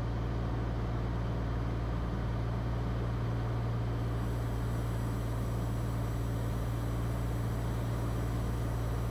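Steady drone of a Cirrus SR20 single-engine airplane's engine and propeller heard from the cockpit in level flight, with a strong low hum.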